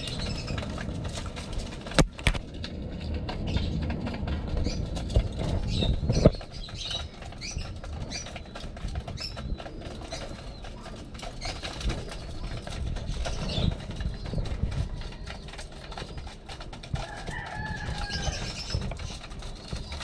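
A flock of racing pigeons flapping and clapping their wings as they jostle over a grain feeding tray, with a dense patter of pecking and scuffling and a couple of sharper knocks in the first six seconds.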